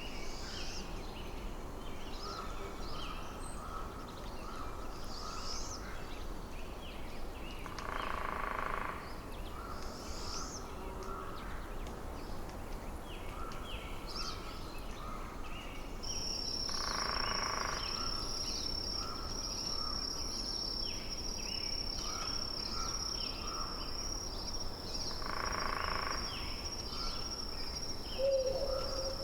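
Forest ambience of small birds: many short chirps over a steady low hiss. A louder call comes back about every nine seconds, and a thin, steady high trill starts about halfway through and keeps on.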